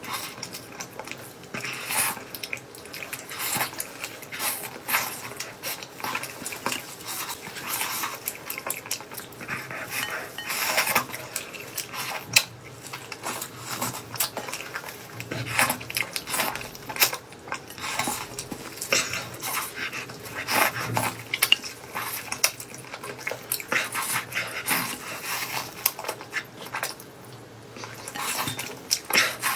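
Eating sounds: utensils clicking and clattering irregularly against dishes, with chewing and mouth noises.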